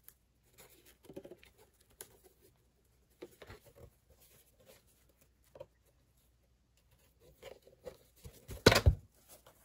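Faint scattered clicks and rustles of craft materials being handled, with a louder cluster of knocks near the end.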